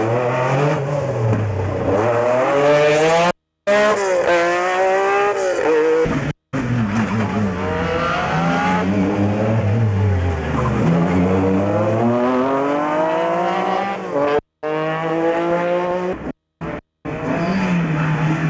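Rally car engines revving hard, the pitch climbing and dropping again and again as the cars change gear and brake through tight corners. Several short passes are joined by abrupt cuts.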